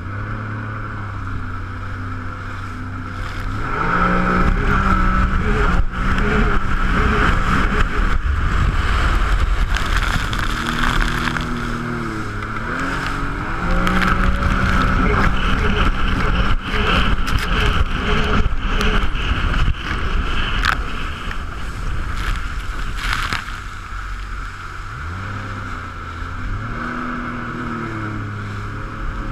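Jet ski engine running and revving up and settling back several times, over a steady rushing noise.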